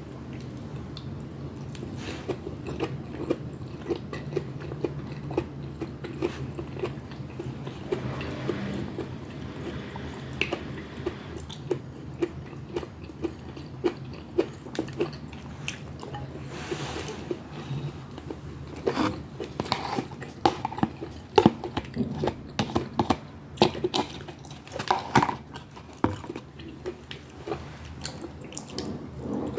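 Close-miked mukbang eating of pinakbet (Filipino vegetable stew): wet chewing and biting with frequent sharp mouth clicks and crunches, growing louder and busier about two-thirds of the way through.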